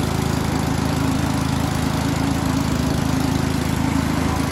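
A gasoline engine running steadily at one constant speed, a smooth unbroken engine drone.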